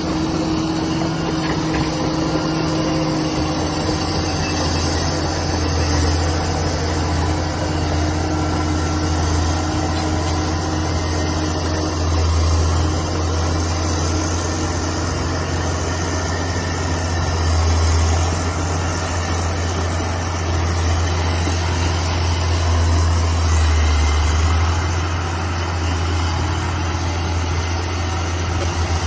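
Bulldozer's diesel engine running steadily with a deep drone, swelling louder several times as it works.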